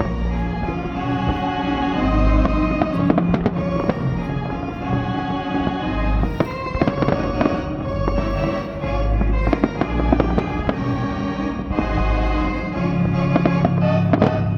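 Fireworks bursting with repeated sharp bangs and crackles over a playing music soundtrack.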